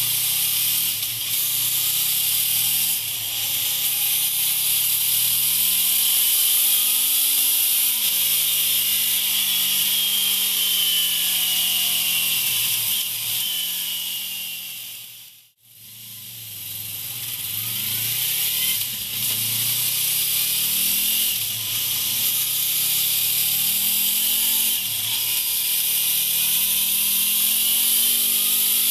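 Honda Crossrunner's V4 engine and exhaust being ridden hard, the pitch climbing and dropping again and again as it revs up and shifts through the gears, under a steady high hiss. About halfway through the sound fades out almost completely for a moment, then returns.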